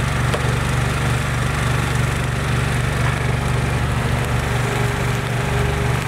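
An engine running steadily at constant speed, an even low hum with no changes in pitch.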